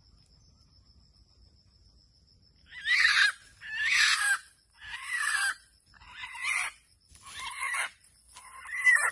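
Red junglefowl giving a run of six loud, harsh squawking calls, about one a second, starting about three seconds in. Before them a faint steady high insect trill.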